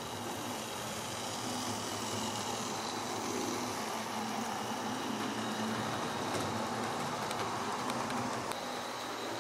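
Model HST (InterCity 125) train running on the layout's track: the steady whirr of its electric motor and wheels rolling on the rails, with a few faint clicks in the second half.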